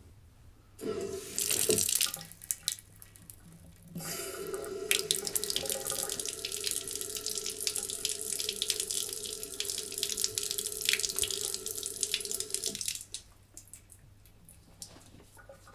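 Bathroom tap running into a sink: a short gush first, then a steady stream from about four seconds in that is turned off near the end.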